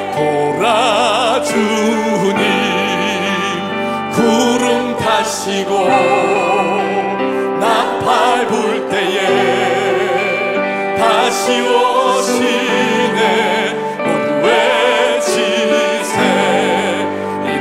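Live worship band and vocal team performing a Korean praise song: singers with strong vibrato over piano, synthesizer, bass, electric guitar and drums.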